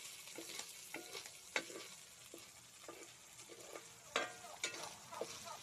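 Diced meat sizzling in hot oil in a metal wok while a metal ladle stirs it, scraping and clinking against the pan. The loudest clinks come about a second and a half in and about four seconds in.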